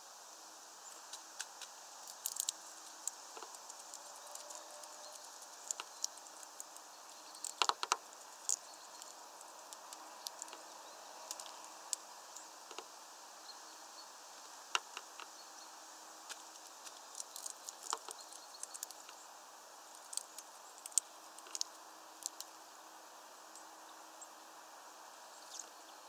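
A hawfinch cracking and picking over sunflower seeds on a feeder tray: irregular sharp clicks and cracks, some in quick clusters, over a faint steady hiss.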